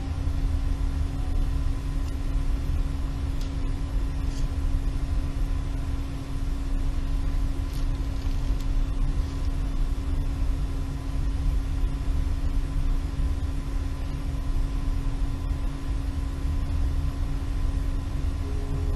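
A steady low rumble under a held low drone tone, an even ambient background with no speech.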